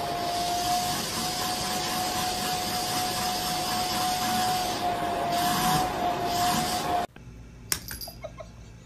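Vacuum cleaner running steadily, its hose held against a cat's fur: a steady rushing noise with a constant whine. It stops suddenly about seven seconds in, leaving a few faint clicks.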